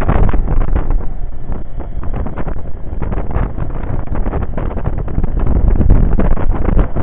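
Wind rushing and buffeting over the microphone on a moving Yamaha XV750 V-twin motorcycle, with the bike's engine running underneath. The rush eases a little in the middle and swells again near the end.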